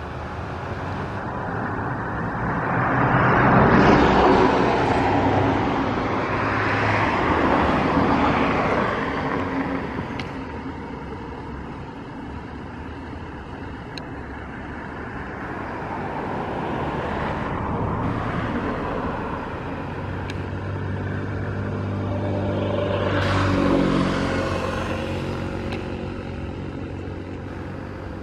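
Motor vehicles passing one after another, each swelling up and fading away, with the loudest pass about four seconds in and another near the end carrying a low engine hum.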